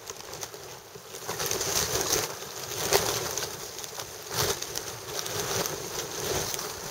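Wind buffeting the microphone over open water: a rushing noise that swells about a second in and then rises and falls in irregular gusts.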